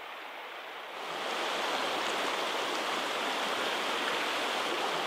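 Creek water running over a shallow riffle, a steady rushing babble that gets louder about a second in.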